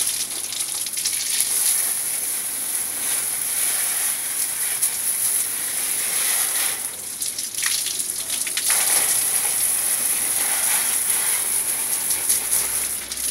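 Water from a garden hose spraying onto the plastic mesh filter screen of a split air conditioner, rinsing the dust off: a steady hiss and patter that drops away briefly about two-thirds of the way through.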